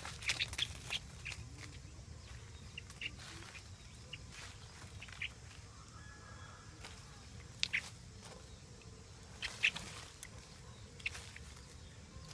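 Small birds giving short, high chirps: a quick cluster at the start, then single chirps every second or two.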